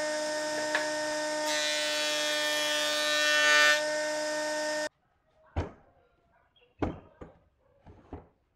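Combination jointer-planer running with a steady motor hum while a thick wooden block is fed over its cutterhead, the cutting hiss swelling for a couple of seconds as the blade bites. The machine sound stops suddenly a little before halfway, followed by about five sharp wooden knocks as blocks and bar clamps are handled.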